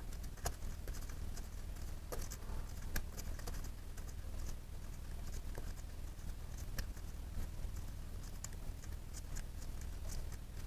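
Quiet, irregular small clicks and scrapes of a gloved hand turning a long plastic coolant bleed screw out of a motorcycle's upper hose, over a low steady hum.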